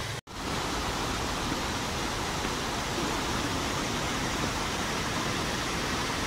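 Steady rush of water from a cascading mountain stream, starting abruptly a moment in.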